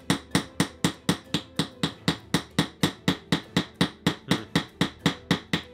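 Rapid, steady tapping of a small toy dig tool pounded point-down on a block of dried clay from a dinosaur excavation kit, about five strikes a second. The light tool makes little headway against the block.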